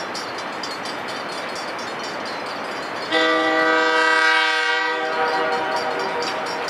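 Air horn of the approaching RS18 diesel locomotive sounding one long chord blast of about two seconds, starting about three seconds in, over the steady noise of the oncoming train.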